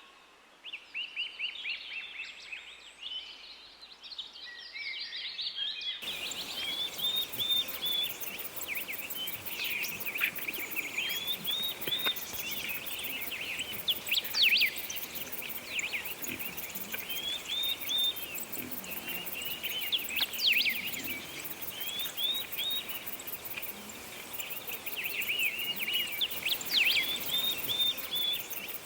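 Birds chirping in quick runs of short high notes, repeated over and over, with a steady hiss in the background that comes in about six seconds in.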